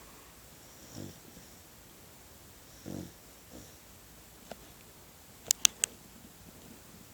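Beagle puppy snoring: two short snores about two seconds apart, then a fainter one. A little past halfway there are three sharp clicks in quick succession, the loudest sounds.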